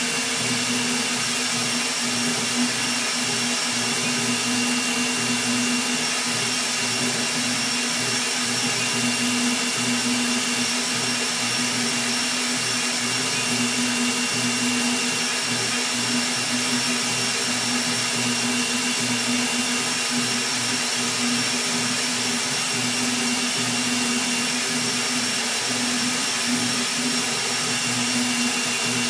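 Rat Rig V-Core 3 3D printer printing at very high speed and acceleration: the Delta blower cooling fan runs with a steady rushing whine over the constant buzz of the stepper motors driving the toolhead back and forth.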